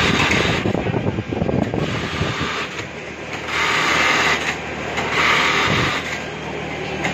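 Industrial sewing machines in a garment workshop, running in bursts of about a second at intervals of a few seconds, over a steady machine hum.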